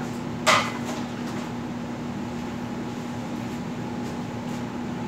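One short, sharp clack about half a second in, then a steady low background hum.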